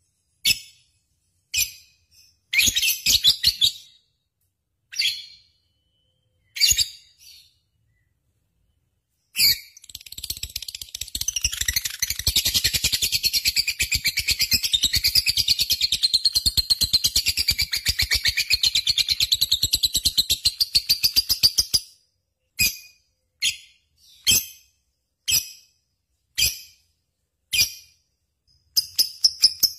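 Lovebird singing: a run of short, sharp high chirps, then about ten seconds in a long, rapid, unbroken chattering trill lasting around twelve seconds that stops abruptly, followed by more single chirps.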